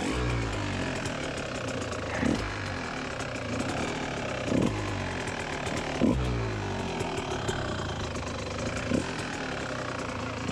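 Kawasaki KX125's 125 cc two-stroke single-cylinder engine idling, with short throttle blips every couple of seconds as the dirt bike is walked over rocks.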